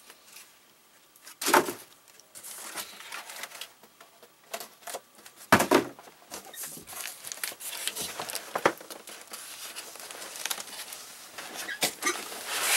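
Handling noise from unpacking and fitting together a sewing machine's parts: packaging rustling and crackling, with three louder knocks of parts being set down or bumped.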